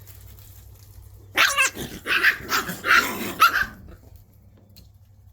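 Shiba Inu puppies growling and barking in a rough play squabble, a loud run of several snarly bursts lasting about two and a half seconds, starting just over a second in.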